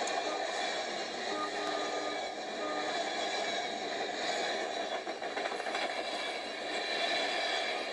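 Amtrak Superliner passenger cars rolling past at speed, a steady rush of wheels on rail, heard played back through a tablet's speaker.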